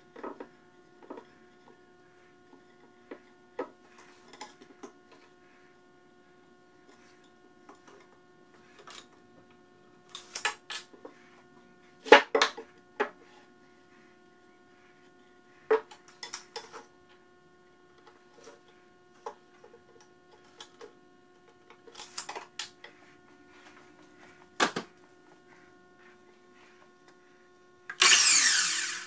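Wooden boards knocked and set down on a plywood workbench: scattered knocks and clicks, the loudest about twelve seconds in, over a steady hum. Near the end a miter saw starts up loudly, its motor spinning up with a rising whine.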